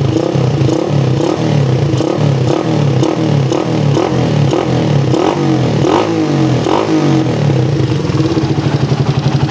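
Bored-up motorcycle engine on a PE24 carburetor with an added power jet, blipped on the throttle in quick repeated revs about two a second, then settling back to idle near the end.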